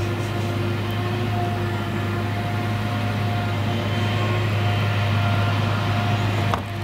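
Claas Jaguar 970 forage harvester running under load while chopping whole-crop triticale: a steady heavy hum with a steady whine above it. The tractor and trailer running alongside add to the sound. The sound drops briefly near the end.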